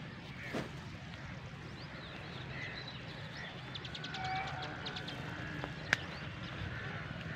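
Birds chirping and calling in short, varied notes, with a quick trill about four seconds in, over a steady low background rumble. A single sharp click sounds about six seconds in.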